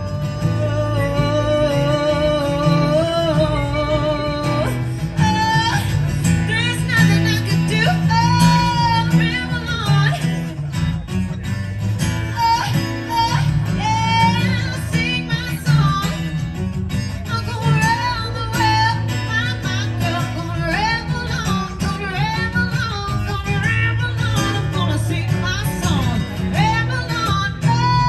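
Live song performance: a woman singing over guitar accompaniment. A long wavering note is held at first, then about five seconds in the voice moves into a run of sung phrases.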